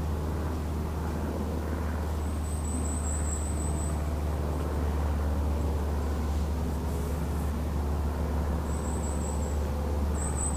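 Steady low rumble of distant road traffic, with a small bird's very high, thin calls coming three times.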